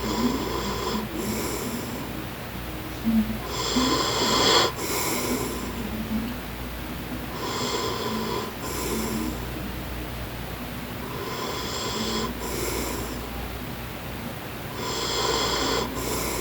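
A man snoring in slow, regular breaths, about four snores roughly four seconds apart, each followed by a short breathy hiss.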